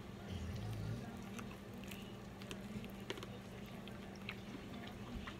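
Close-up biting and chewing of a sauce-dipped fried chicken wing: scattered short crisp clicks and wet mouth sounds. A steady low hum runs underneath.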